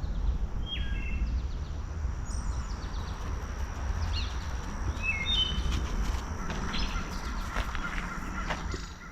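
Woodland ambience: songbirds give short chirps and calls every second or so, over a steady low rumble and a faint high steady tone. Scattered light clicks and rustles come in the second half.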